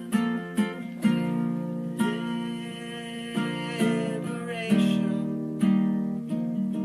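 Background music: an acoustic guitar strumming slow chords, about one strum a second, with no singing in this stretch.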